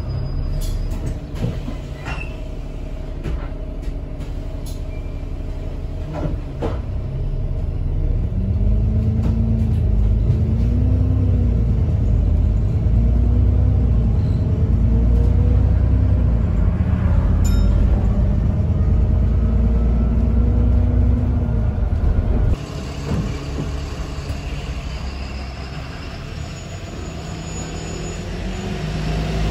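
Alexander Dennis Enviro400 double-decker bus heard from inside: the diesel engine and driveline rumble under way, with a whine that rises and falls as the bus speeds up and slows, and clicks and rattles from the interior fittings. About three quarters of the way through, the sound abruptly changes to the bus's engine running, heard from outside with traffic hiss.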